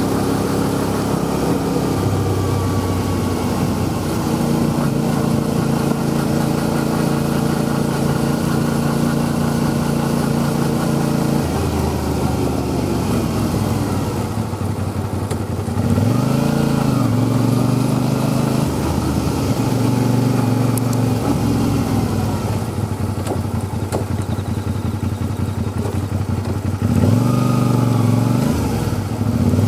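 Motorcycle engine running while being ridden, holding a steady pitch for roughly the first ten seconds, then revving up and easing off a few times as the bike accelerates.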